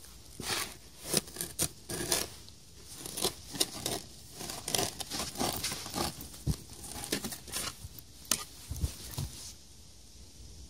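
A bundle of copper wire being handled: irregular crackling, rustling and sharp clicks, several of them louder strokes.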